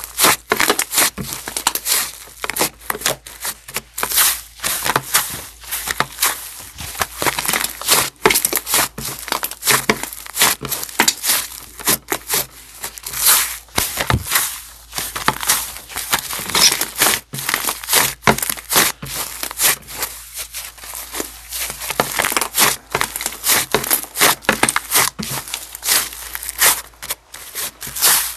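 Soft white stretchy slime being kneaded, pressed and pulled by hand: dense, irregular sticky crackles and small air pops, several a second, as the slime is squeezed, folded and pulled apart.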